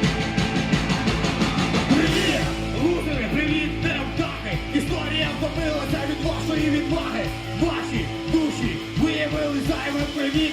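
Live rock band playing a driving punk-rock number with a steady drum beat, and shouted vocals coming in about two seconds in.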